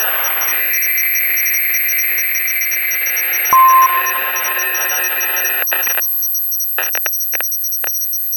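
Electronic soundscape of steady high tones under a wash of noise, with a fast run of high pips and a single short beep about three and a half seconds in. About six seconds in the noise drops out, leaving the steady tones and a few clicks.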